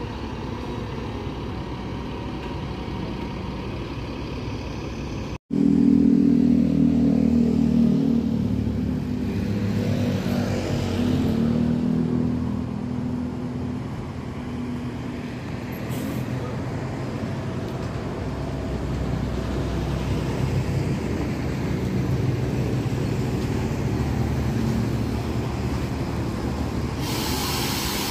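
Large diesel coach engines running, with a steady low drone. The sound drops out briefly about five seconds in and comes back louder. A loud hiss of released air comes near the end.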